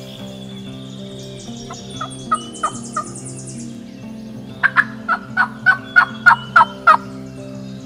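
Turkey yelping: a soft run of about five yelps, then after a short pause a louder run of about nine evenly spaced yelps, each note dropping in pitch.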